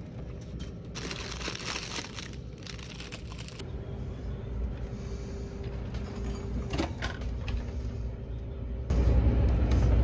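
Plastic food wrapping crinkling for a couple of seconds, then a microwave oven running with a steady hum, all over a low engine drone; a much louder low rumble comes in near the end.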